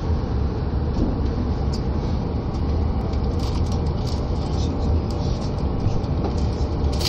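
Running noise of a limited express train heard inside the passenger cabin as it pulls out along a station platform and gathers speed: a steady low rumble with faint, irregular high ticks.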